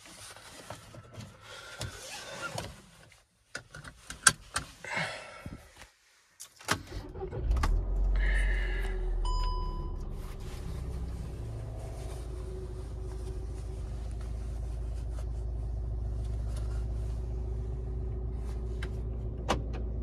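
Clicks and rustles inside a Volkswagen car, then its engine starts about seven seconds in and settles into a steady idle, heard from inside the cabin. A short electronic dashboard chime sounds just after the start.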